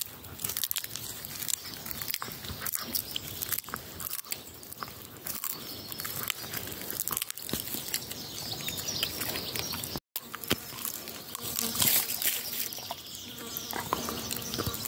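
Golden retriever gnawing on a wooden stick close to the microphone: repeated cracks and crunches of the wood between its teeth. The sound cuts out briefly about ten seconds in.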